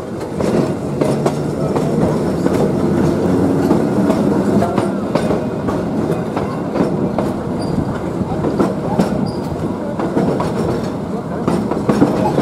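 Passenger railcar rolling along the track, heard from on board: a steady rumble with the wheels clicking over the rail joints.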